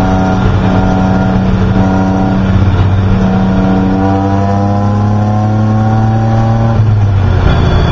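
Race car's engine heard from inside the cabin under way on track. It wavers and steps in pitch a few times early on, then climbs steadily in revs for several seconds before dropping in pitch near the end.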